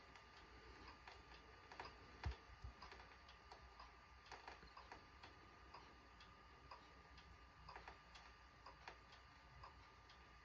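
Near silence: faint, irregularly spaced clicks over a thin steady whine, with one soft thump about two seconds in.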